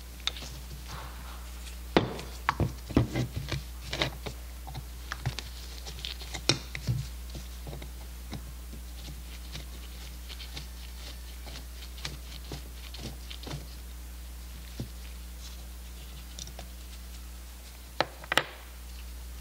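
Scattered clicks and knocks of metal as a Zenith-Stromberg CD-175 carburetor is handled and worked with a screwdriver on a workbench. They are busiest in the first several seconds, sparse in the middle, with two sharp knocks near the end, over a steady low hum.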